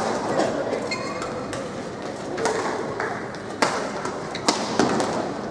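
Badminton rally: several sharp racket strikes on the shuttlecock, the loudest about three and a half and four and a half seconds in, over a steady murmur in the hall.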